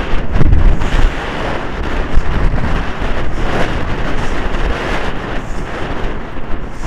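Wind buffeting the microphone of a helmet-mounted Cambox V4 Pro headcam as the rider canters and gallops: a loud, gusty rumble that surges unevenly.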